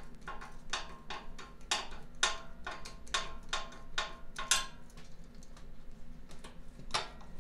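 A screwdriver turning a hose clamp on a Snapper rear-engine rider's drive boot: a regular run of light metallic clicks, about three a second, that stops about four and a half seconds in, with one more click near the end.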